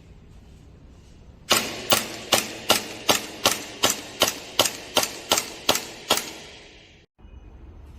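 Airsoft gun firing about thirteen shots in an even, quick series, roughly two to three a second, each a sharp crack with a short ring after it.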